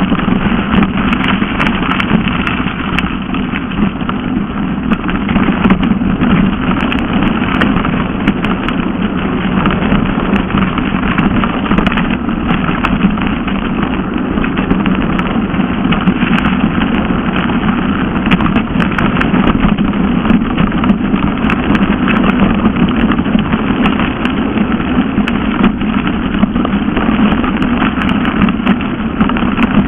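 Mountain bike descending a gravel forest track: steady rushing wind noise on the action camera's microphone mixed with tyre rumble over the gravel and occasional small rattling clicks.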